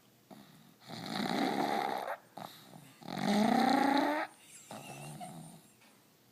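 Pug snoring in its sleep: two loud snores about two seconds apart, then a fainter third one, the noisy breathing of its short, flat-nosed airway.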